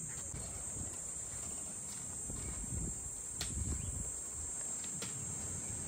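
Steady high-pitched chorus of insects in the bush, with a low rumble and a few faint clicks beneath it.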